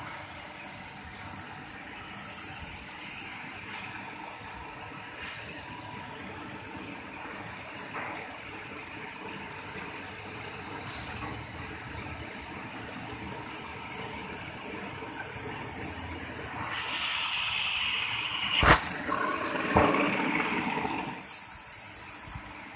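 Fiber laser cutter cutting stainless steel with compressed air as the assist gas: a steady high hiss of air jetting from the cutting head over the machine's running noise. About three-quarters of the way through there is a single sharp, loud knock, then the hiss stops for about two seconds and starts again.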